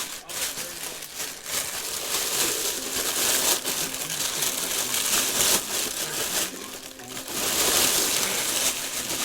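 Packaging being crumpled and handled: a continuous crinkling rustle with many small crackles, louder in the middle and again near the end.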